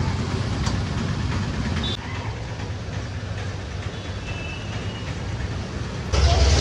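Street traffic noise: a steady rumble of vehicles, growing louder near the end.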